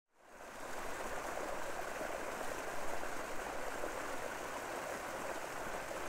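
River water flowing: a steady rushing sound that fades in over the first second.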